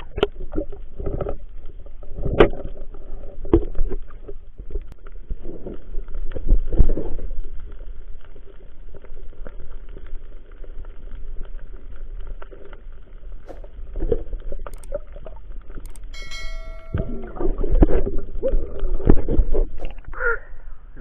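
Muffled sloshing and gurgling of water heard through an action camera's waterproof housing, with irregular low thumps and splashes. A brief whistle-like tone comes about sixteen seconds in.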